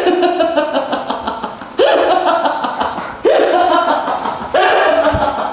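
A woman laughing in four bouts of rapid, pulsing giggles, each starting abruptly, about every one and a half seconds.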